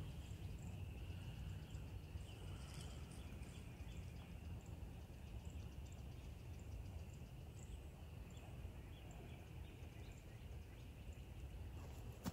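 Quiet woodland ambience: a steady low rumble with faint, continuous high chirping and soft ticks in the background.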